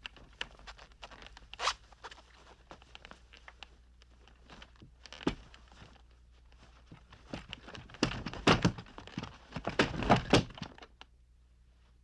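Handling noises as a telephone is worked on and taken apart: scattered clicks, knocks and scraping, coming thick and loud for a couple of seconds about two-thirds of the way through.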